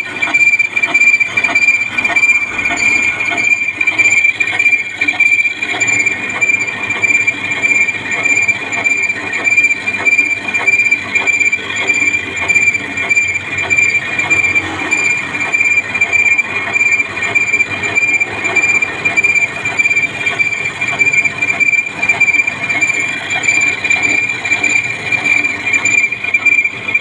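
Metal lathe cutting, the tool giving a steady high-pitched squeal over a dense crackle.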